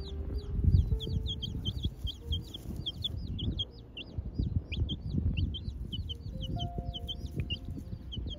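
Domestic chick peeping rapidly, a run of short high peeps several to the second, each dropping in pitch, under a low rumbling noise that is loudest just under a second in.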